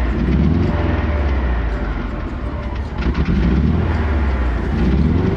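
Motorcycle engine of an off-road kart running while the kart is driven over dirt, its pitch rising and falling a few times.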